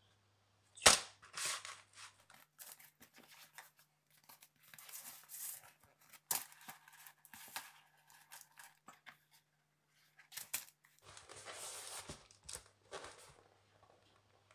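Sheets of white paper being handled and folded into a lamp shade: irregular rustling and crinkling, with a sharp snap about a second in.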